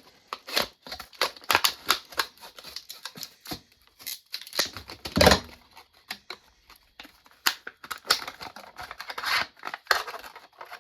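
Quinn scissors cutting through tough hard-plastic blister packaging: a run of irregular snips and crackles, with one louder crack about five seconds in.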